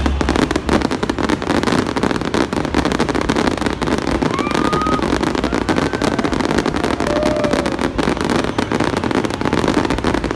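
Fireworks display going off in a dense, continuous barrage of crackles and bangs, with a few brief whistles over it.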